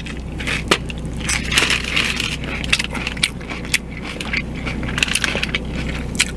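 Close-up chewing of a crunchy hard taco shell: a run of irregular crunches and crackles as the shell breaks up in the mouth.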